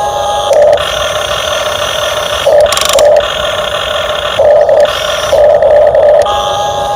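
RC excavator's hydraulic pump motor whining steadily, growing louder four times for a half-second to a second as the controls are worked.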